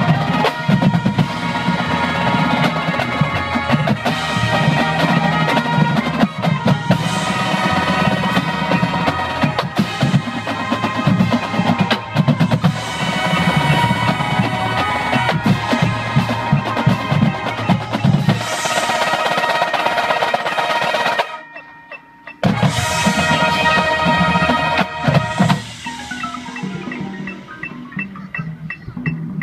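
A drum and bugle corps playing full out: brass line with marching snare, tenor and bass drums and front-ensemble marimbas. The whole ensemble stops short for about a second two-thirds of the way through, comes back in, and thins to a quieter passage near the end.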